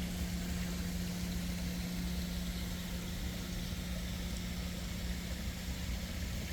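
A steady mechanical hum over a low rumble and hiss, the hum stopping abruptly at the end.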